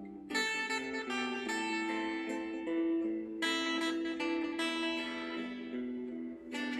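Background music: a plucked acoustic guitar picking a slow melody, with new notes struck every half second or so and a fresh phrase starting about three and a half seconds in.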